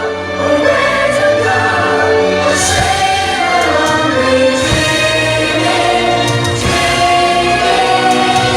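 Choir singing over orchestral music.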